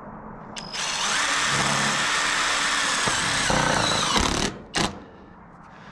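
Cordless drill driving a roofing screw through steel sheet-metal flashing. The motor runs for about three and a half seconds, its pitch sinking slightly as the screw seats, then stops, followed by one short blip of the trigger.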